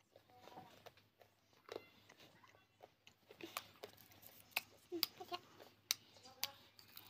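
A person chewing a mouthful of a green lafa-leaf dish with the mouth close to the microphone. Sharp crackles and clicks of chewing come thickest from about halfway through to near the end.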